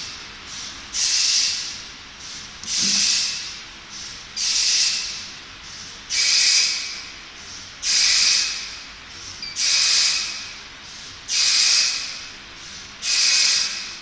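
Air hissing in short, evenly repeated bursts, about eight of them, one every second and three quarters or so, each starting sharply and fading away, like compressed air venting from a pneumatic valve on a cycling machine.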